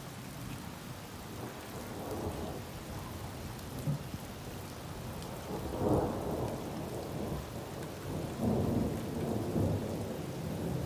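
Thunder rolling in long deep swells, loudest about six seconds in and again near the end, over steady rain. It follows a big intracloud flash rather than a ground strike.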